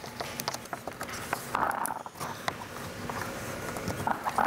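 Fingers pressing vinyl wrap film onto a plastic car grille: scattered small clicks and taps, with two brief rubbing squeaks, one in the middle and one near the end.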